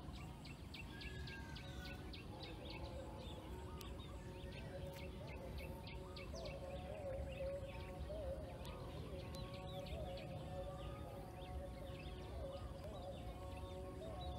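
Outdoor evening ambience: many birds chirping in quick, short calls over a low, steady rumble, with a fainter wavering tone that rises and falls in the background from about halfway through.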